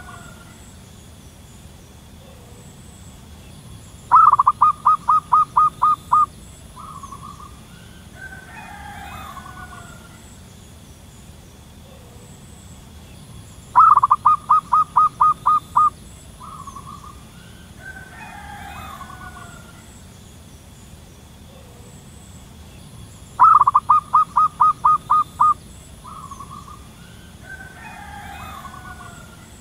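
Zebra dove calling three times, about ten seconds apart: each call a rapid run of about ten short staccato cooing notes lasting about two seconds, ending in one short note. Fainter, longer bird calls sound between the bouts over a steady high hum.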